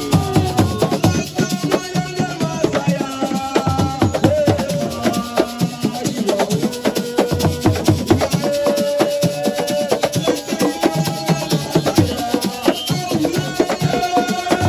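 Live assiko music: fast drums and shaken rattles with group singing over them.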